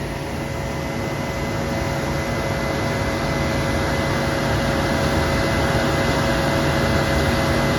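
Combine harvester running steadily: a machine drone with an even whirring hiss from the harvesting machinery, growing slowly louder.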